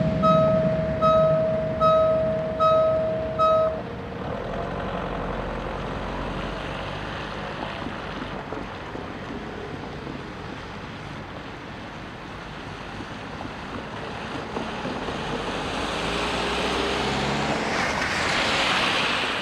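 Railway level-crossing warning bell dinging about one and a half times a second, stopping about four seconds in as the crossing clears. After that comes the steady hiss of car tyres on the wet road, swelling near the end as a car swishes through the spray.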